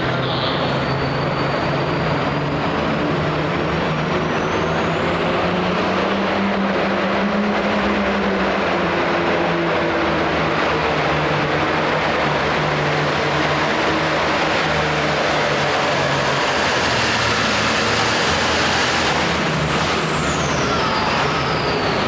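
Ford 9000 hot farm pulling tractor's turbocharged diesel engine running flat out while pulling a weight-transfer sled. A high whine climbs over the first six seconds, holds, and falls away near the end.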